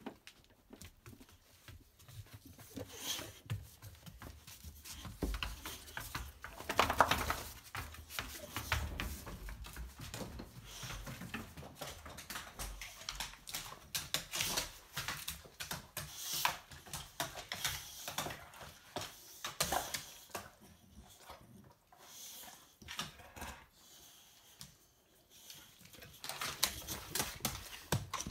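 A large dog moving about and greeting people: irregular scuffles, clicks and knocks, loudest about seven seconds in, with a quieter stretch shortly after twenty seconds.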